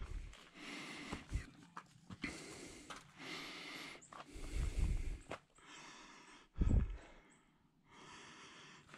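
Hikers breathing hard while climbing rock steps, with a breath about every second or so. A few low thumps come in between, the loudest about seven seconds in.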